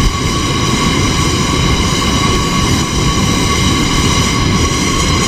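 Stove burner running steadily under a pan of cockles steaming open: a loud, even low rush with a thin steady whine above it.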